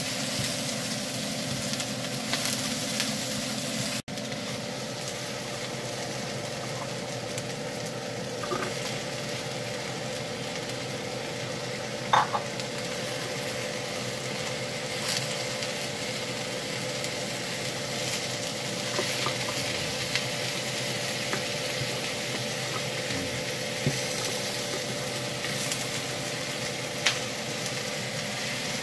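Sliced onions and carrots sizzling in a frying pan while a spatula stirs and scrapes them, with a few sharp clacks of the spatula against the pan, the loudest about twelve seconds in. A steady low hum runs underneath, and the sound cuts out for an instant about four seconds in.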